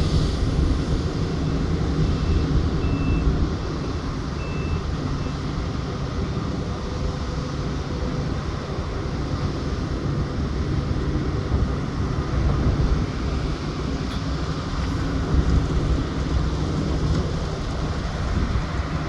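Heavy diesel mining machinery, a large hydraulic excavator loading a Komatsu HD785 haul truck, with the engines running steadily in a deep rumble. A faint short high beep sounds a few times in the first five seconds.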